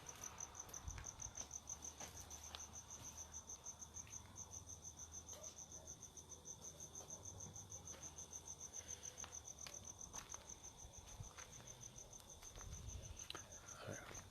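A cricket chirping steadily, a faint high pulsed note repeating about five times a second.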